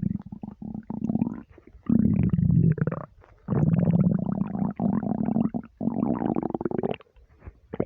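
Human stomach rumbling while empty: a string of deep, long rumbles, some rising in pitch. The longest run together through the second half, then fade to a near-quiet pause near the end.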